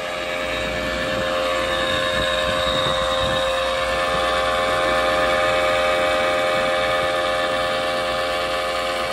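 CNC turning center powered up and idling: its hydraulic power unit and Daikin inverter oil chiller run with a steady hum and several steady whining tones, swelling slightly in the middle.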